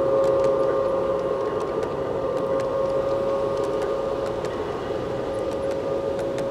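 Garden-scale model train rolling past on a curve: a steady high whine over a rolling rumble, with irregular clicks of the wheels over the rail joints, slowly fading.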